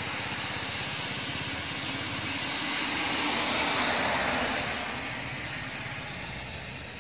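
Isuzu Elf minibus passing close by on a wet road: its diesel engine and the hiss of its tyres on wet asphalt swell as it approaches, peak about four seconds in as it goes past, then fade away.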